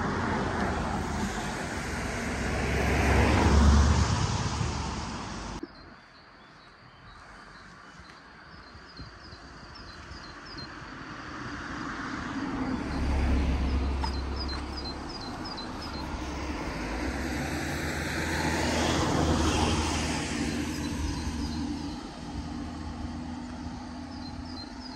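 Road vehicles passing one after another on a wet road, each a rising and fading tyre hiss over a low engine rumble, loudest about three seconds in, then again near thirteen and twenty seconds. The first pass cuts off suddenly about six seconds in, and faint short high chirps come and go through the rest.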